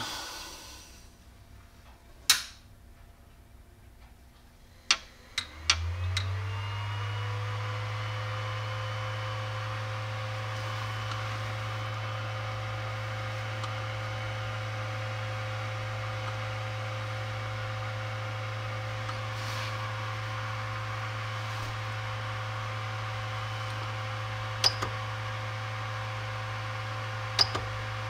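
A few clicks, then the Creality Ender 5 Pro 3D printer powers up: its cooling fans spin up with a rising whir about five seconds in and settle into a steady whir and hum. Two short clicks from the control knob come near the end.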